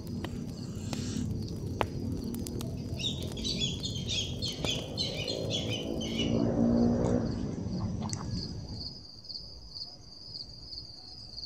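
Outdoor ambience of birds chirping and insects in the trees, with scattered sharp clicks from a burning campfire. A low droning sound swells and is loudest around six to seven seconds in. After that, crickets chirp in a steady pulsing trill on a quieter background.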